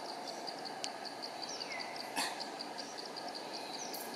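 Forest ambience with an insect chirping steadily in high pulses, about six a second, over a constant background hiss. A short falling whistle and a brief rustle come about two seconds in.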